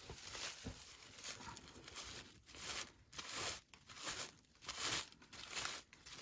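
Raffia yarn rustling and crinkling in a series of short swishes as a raffia cord is drawn through the holes of a crocheted raffia pot cover.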